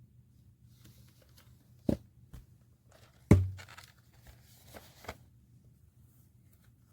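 Handling noises: scattered clicks and rustles, with a knock about two seconds in and a loud thump a little past three seconds.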